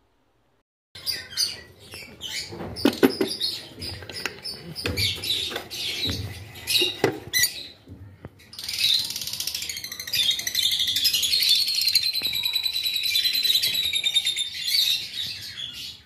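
Lovebird chicks in a nest box chirping: scattered short chirps and clicks at first, then from about halfway a continuous, rapid, high-pitched chirping, the steady call of hungry nestlings begging.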